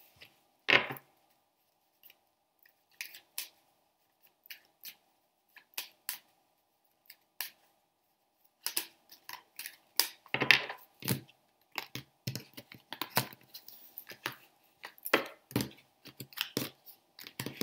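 Tarot cards being shuffled by hand: scattered soft card taps, slides and riffles, sparse at first and much more frequent from about halfway on, with one sharp knock about a second in.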